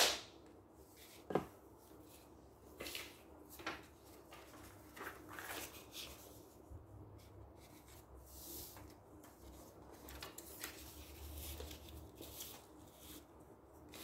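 Paper cut-outs being handled on a wooden table: scattered light rustles, slides and taps of paper, with one sharp click at the very start.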